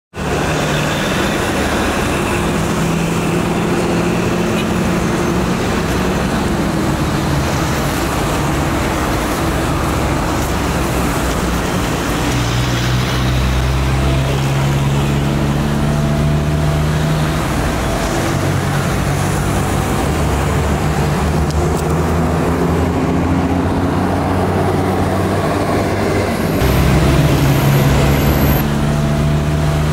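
City street traffic: cars, pickup trucks and buses running and passing on the road, with a steady rumble of engines and tyres that gets a little louder near the end.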